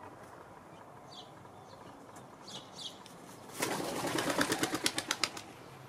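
Wood pigeon's wings beating the water in a rapid run of about ten strokes a second, with splashing, starting about three and a half seconds in and lasting about a second and a half. A few short high chirps from small birds come before it.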